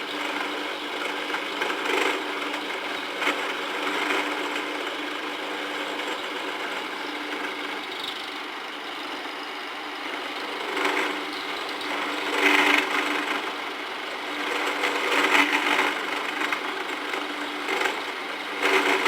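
Homemade drill-press mini mill, driven by a treadmill motor, running steadily with a constant hum, while a cheap end mill cuts steel bar stock; the cutting noise grows louder and harsher several times as the cut bites.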